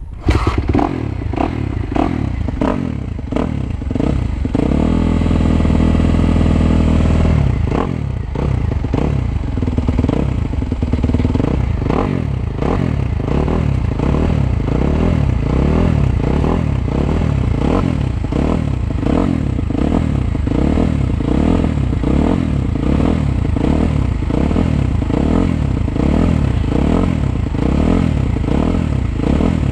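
Suzuki 250 motocross bike's engine revving up and down as it is ridden, holding one steady note for a couple of seconds about five seconds in, with frequent sharp knocks throughout.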